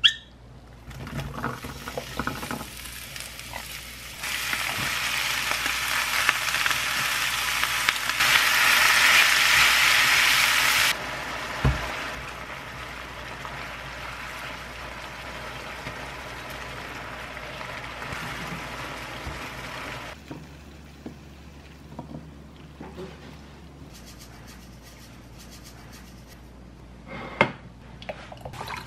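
Sliced ham, onion and mushrooms sizzling in a frying pan as they are stir-fried with a spatula. The sizzle is loudest for several seconds about a third of the way in, then drops to a softer sizzle and fades. A sharp click comes right at the start.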